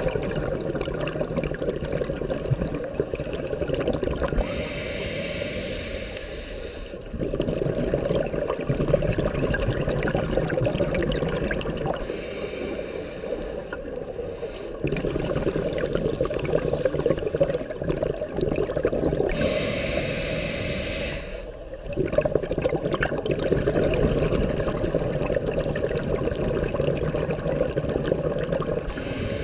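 Scuba diver breathing underwater through a regulator. There are three slow breaths, each a hissing inhale of two to three seconds followed by a long rush of exhaled bubbles.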